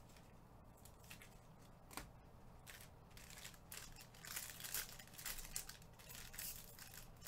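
Foil wrapper of a trading card pack crinkling as it is handled and opened: a few faint crackles at first, then denser crinkling from about four seconds in.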